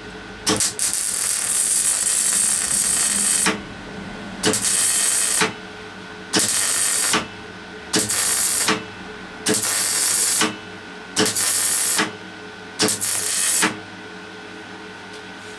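Gas-shielded MIG welder arc running in seven bursts: one of about three seconds, then six of about a second each with short pauses between. This is tack welding thin steel chair-frame tube a bit at a time.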